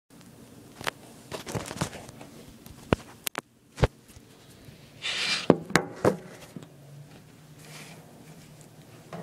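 Scattered sharp clicks and knocks, with a short rustle about five seconds in.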